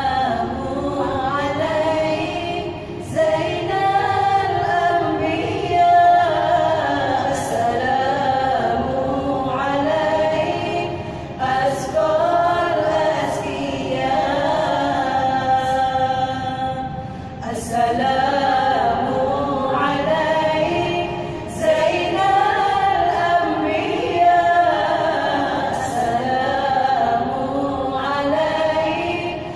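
Women's vocal group singing a gambus-style song a cappella, voices moving together on long held and bending notes.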